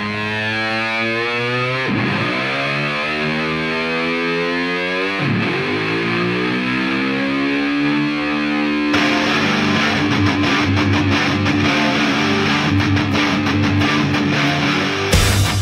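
Hard rock music: a distorted electric guitar through effects imitates a revving motorcycle engine, diving in pitch and climbing back twice. About nine seconds in the full distorted guitar riff kicks in, and heavy drum hits land near the end.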